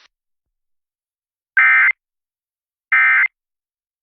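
Emergency Alert System end-of-message signal: two short bursts of SAME digital data, each a harsh buzzing warble about a third of a second long, about one and a half and three seconds in. These bursts mark the end of the alert.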